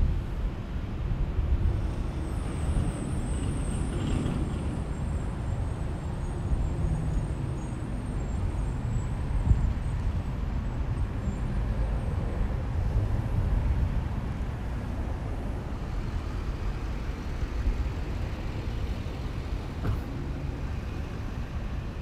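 Outdoor parking-lot ambience: a steady low rumble of road traffic and wind on the microphone. A faint high whine runs for about ten seconds in the first half.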